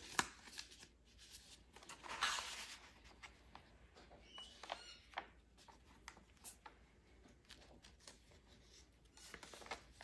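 Paper rustling and sliding as a small paper envelope and card are handled and tucked into a handmade journal, with soft clicks and taps, then journal pages being turned. The clearest rustle comes about two seconds in.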